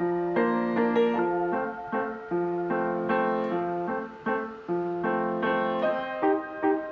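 Background piano music: single notes and chords struck and fading in a continuous melody.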